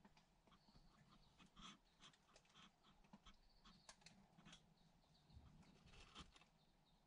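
Near silence with faint, scattered clicks and crinkles: young kittens shifting against the plastic bags lining their cardboard box.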